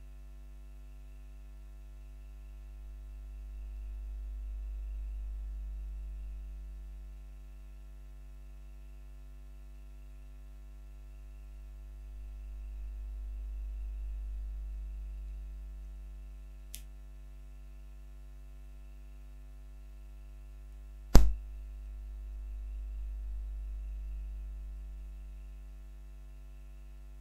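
Steady electrical hum with a low rumble that swells and fades three times, a faint click and then one loud sharp click about two-thirds of the way through.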